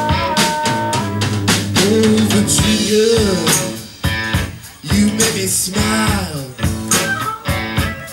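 Blues song played on guitar, strummed in a steady rhythm, with a held note that ends about a second in.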